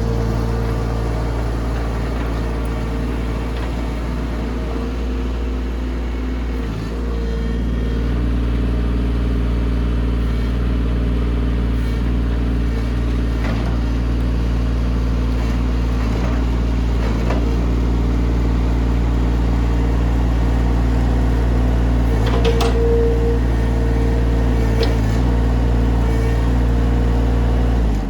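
Mini excavator's diesel engine running steadily under working load, picking up a little about a quarter of the way in, with a higher whine that swells about three-quarters through and a few sharp clanks from the machine as it levels dirt. The sound cuts off suddenly at the very end.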